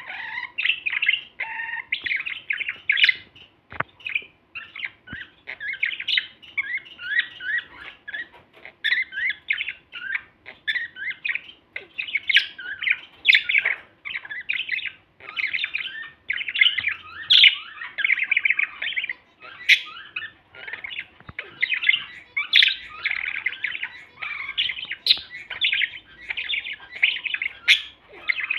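Male budgerigars warbling: a continuous, rapid chattering song full of quick pitch changes, with short sharp clicks scattered through it.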